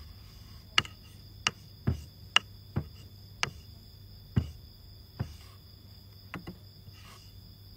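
A series of sharp, irregular clicks or taps, about a dozen over six seconds, the last two close together, over a faint steady high-pitched tone.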